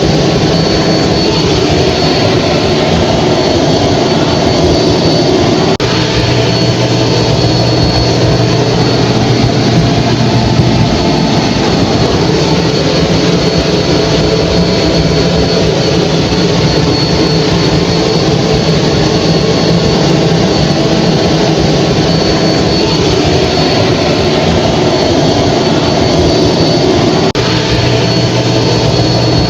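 Hair dryer running steadily: a loud, even blowing rush with a thin high whine from the motor and fan, and a low hum underneath.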